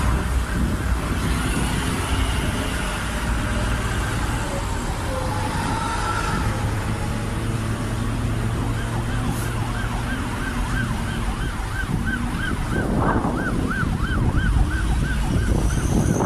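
Low, steady traffic rumble of engines and tyres. About halfway in, an emergency-vehicle siren starts, warbling fast at about two to three sweeps a second.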